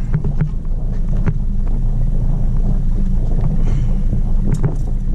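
Steady wind rumble on the microphone and water noise aboard a small aluminum fishing boat under way, with a few light knocks about a second in and near the end.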